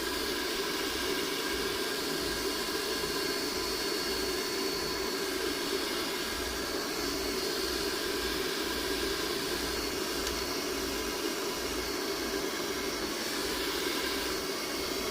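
Pet hair dryer switched on and running steadily: a constant rush of blown air with a thin high motor whine.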